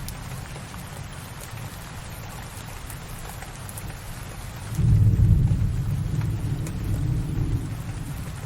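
Steady rain with thunder: a low rumble rises suddenly a little before halfway and rolls off over about three seconds.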